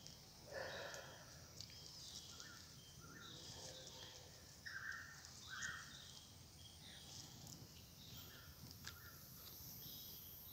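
Faint irregular footsteps crunching through dry leaf litter in forest undergrowth, a step every second or so, with faint high chirps in the background.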